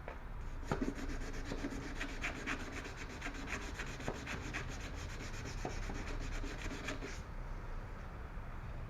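Sandpaper rubbed back and forth by hand over damaged car paint to smooth it, in quick, even strokes that start about a second in and stop about a second before the end.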